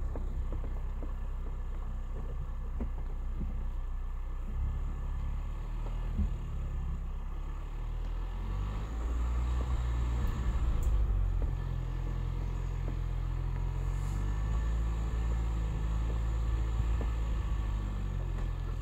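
2021 Ford Bronco's engine running at low revs as it crawls down a rocky trail in four-wheel-drive low: a steady low rumble that swells a little around the middle, with a few faint clicks.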